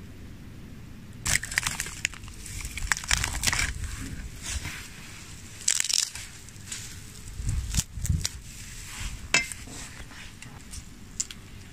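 Crisp roasted guinea fowl being torn apart by hand: the skin crackles and the meat tears in a run of short, crunchy bursts and snaps. It starts about a second in and dies away near the end.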